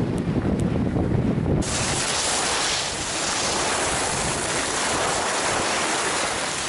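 Wind buffeting the camera microphone during a ski run as a low rumble, which cuts off abruptly about one and a half seconds in. It gives way to a steady bright hiss of skis sliding over packed snow.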